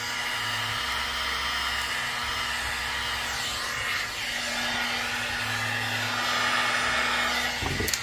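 Electric heat gun blowing steadily as it shrinks heat-shrink tubing over a soldered butt splice, then stops right at the end with a click.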